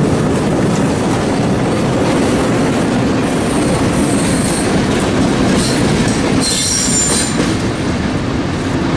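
Passenger train cars rolling past at close range with a loud, steady rumble of wheels on rail. High-pitched wheel squeal rises briefly about three seconds in and again, more strongly, a little after six seconds in.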